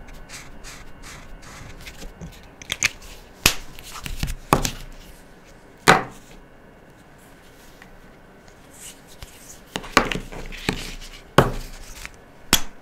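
Felt-tip highlighter marker scratching across paper, then a series of sharp plastic clicks and knocks as marker pens are handled, put down and picked up.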